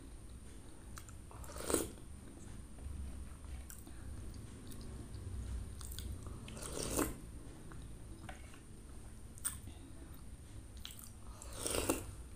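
Close-miked eating sounds of a woman chewing spoonfuls of kolak, soft banana, sweet potato and sugar palm fruit in chilled coconut-milk broth. Three louder mouth sounds come about two, seven and twelve seconds in, with a few light clicks between them.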